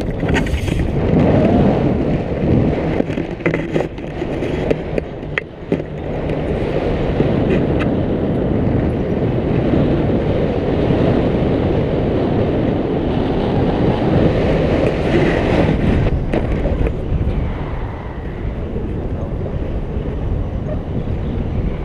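Airflow of a paraglider in flight buffeting a pole-mounted camera's microphone: loud, gusting wind noise that dips briefly about five seconds in.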